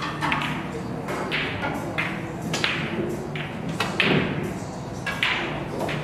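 Pool balls clicking: cue-tip strikes and ball-on-ball collisions from the near table and neighbouring tables, about nine sharp clicks at irregular intervals, each ringing briefly. The loudest is a heavier knock about four seconds in. A steady low hum of the hall runs underneath.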